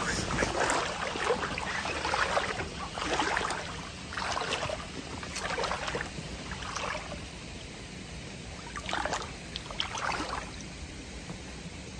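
Shallow stream water sloshing in short, irregular splashes every second or two from slow wading through a stony streambed, over a faint steady trickle of flowing water. The splashes grow sparser in the second half.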